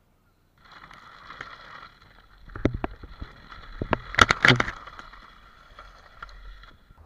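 Inline skates on 110 mm polyurethane wheels rolling along a path with a steady rolling whir. Sharp clattering knocks come in the middle, loudest about four seconds in, as the wheels hit wooden boards.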